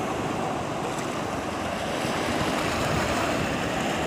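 Small sea waves washing and breaking over a shore of rocks and pebbles: a steady rush of surf.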